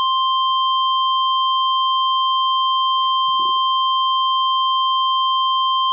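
Emergency Alert System attention tone: one loud, steady, high-pitched tone held without a break.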